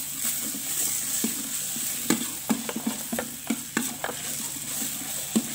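Scrambled egg and chopped tomato sizzling in margarine in a wok while being stir-fried, with a metal spatula scraping and clacking against the pan many times, most often from about two seconds in.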